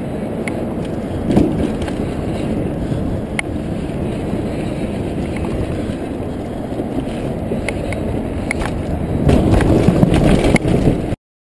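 Downhill mountain bike ridden fast over rough dirt, heard close up: a steady tyre rumble with sharp clicks and rattles from the bike, and a hard thump about a second in. Near the end the rumble grows louder and rougher as the bike rolls over a wooden ramp, then the sound cuts off suddenly.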